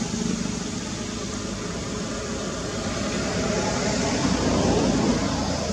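Steady rumbling noise, growing louder from about three seconds in and peaking near the end.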